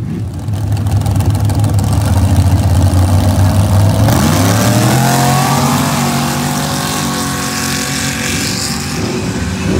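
Modified drag-racing pickup truck's engine running loud and revving, then accelerating hard, its pitch rising about four seconds in, as the truck launches down a dirt drag strip.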